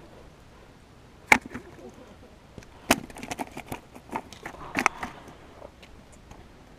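Caught crappie being handled on a concrete walkway and dropped into a plastic bucket: a few sharp knocks and slaps, the loudest about a second in and again about three seconds in, then a run of smaller taps that dies away after about five seconds.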